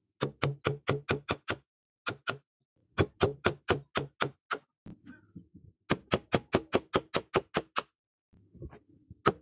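Quick hammer blows on a steel punch driving the old wooden handle stub out of the eye of a rusty axe head held in a vise. The strikes come in four runs, about six a second, with the longest run near the end.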